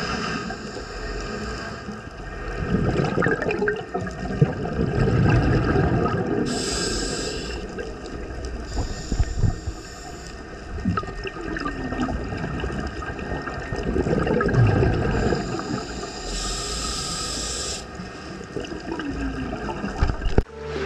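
Scuba diver breathing through a regulator underwater: short hissing inhalations alternating with rumbling, gurgling bursts of exhaled bubbles, a breath every several seconds.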